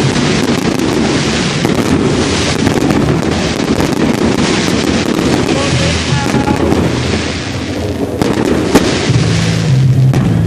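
Fireworks going off in a display: dense crackling with many sharp pops throughout, and one louder sharp bang near the end.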